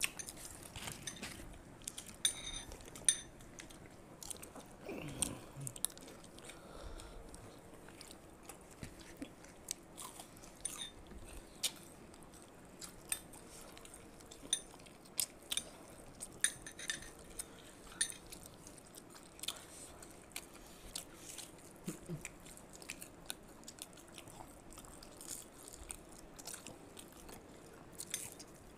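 People chewing and biting into fried snacks, jalebi and banana fritters, with irregular crisp crunches and clicks all the way through.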